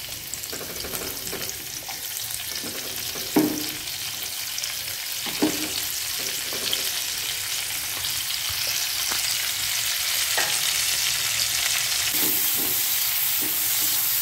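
Sliced onions and green chillies sizzling in hot oil in a frying pan, the sizzle growing steadily louder as they fry. A few sharp knocks of a spatula against the pan come as they are stirred.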